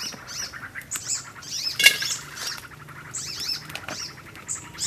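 Small birds chirping over and over in short, high, squeaky notes, with one sharp knock about two seconds in as shrimp go into a metal wok.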